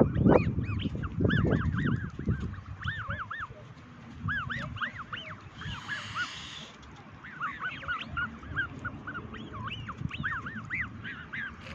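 Black swan cygnets peeping: many short, arching whistled calls, several a second, with pauses between runs. A low rumble sits under the calls in the first couple of seconds.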